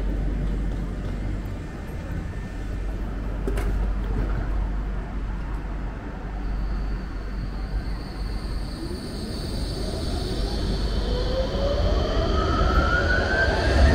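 Electric tram pulling away from a stop: a low steady hum, then from about eight seconds in a rising whine from its traction motors as it gathers speed, growing louder toward the end.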